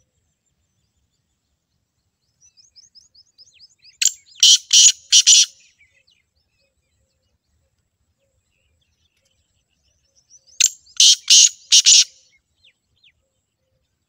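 Black francolin (black partridge) calling twice, about six seconds apart. Each call is a soft run of quick short notes that leads into four loud, harsh notes spaced over about a second and a half.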